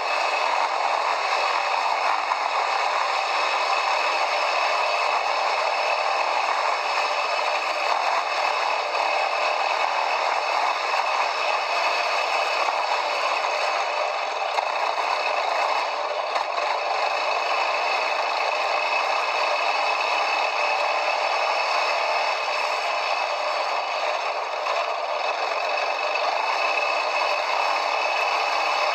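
Continuous rattling and clattering noise of a quad bike (ATV) riding off-road, as picked up by a camera carried on the ride.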